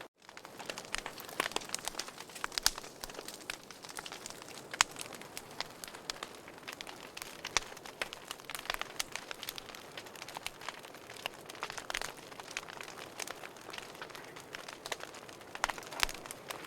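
Wood fire crackling in a fireplace: irregular sharp pops and snaps over a steady soft hiss. The sound cuts out for a split second at the very start.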